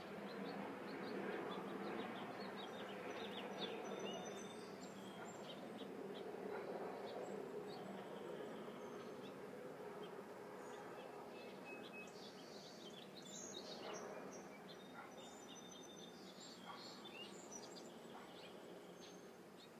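Ruby-throated hummingbird wings humming as the bird hovers, a buzzing hum that is strongest in the first half and then fades. Short high bird chirps and twitters sound over it.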